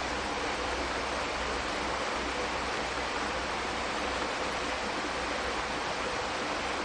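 Steady, even rushing of flowing water, unchanging throughout.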